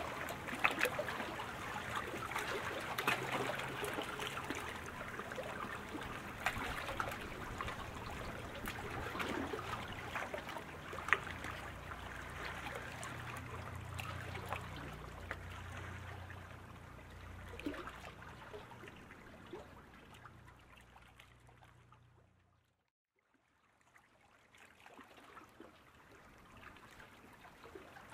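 Sprint kayak paddle blades splashing into the water, with many small sharp splashes over a low rumble. The sound fades a little before twenty seconds in and drops out briefly, then returns as fainter water noise.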